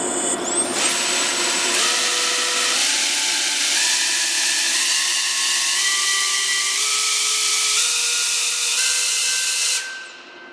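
MEPS SZ1804 2450KV brushless FPV motor spinning a 3-inch three-blade propeller, run up from standstill in 10% throttle steps about every second toward full throttle. A whine that steps up in pitch about once a second over loud propeller wash, cutting off about ten seconds in.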